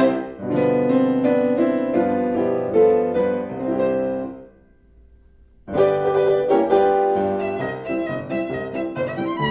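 Background music, a violin and piano score, that breaks off for about a second midway and then starts again.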